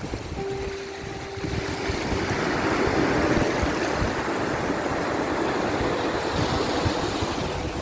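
Sea surf: a steady wash of waves that swells a little about two to three seconds in.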